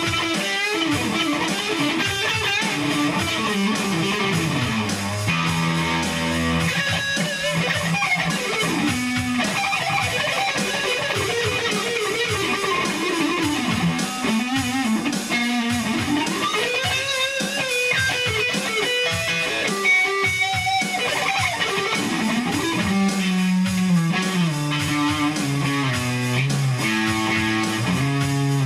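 Background music led by guitar, with a bass line of held low notes and bending melody lines.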